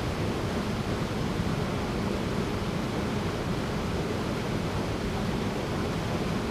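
Small waterfall pouring into a rocky pool: a steady, even rush of falling and churning water.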